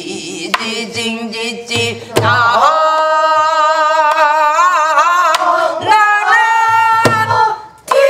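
Korean traditional folk-style singing: a voice holding long notes with a wide, wavering vibrato, accompanied by occasional low drum strokes.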